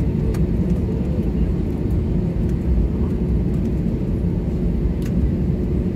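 Cabin noise of a jet airliner taxiing, heard from inside the cabin: a steady low rumble of the engines and rolling airframe, with a constant hum running through it.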